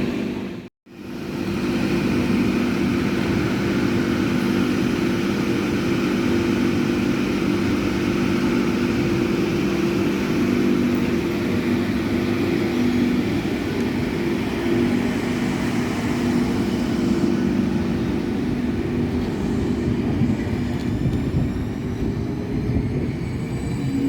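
A train at the station: a steady hum with several held tones over a rumble, broken by a brief cut to silence about a second in, with a rising whine near the end.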